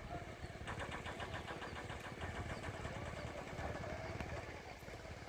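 Indian diesel locomotive engine chugging in a fast, even rhythm, with a rhythmic clatter joining about a second in.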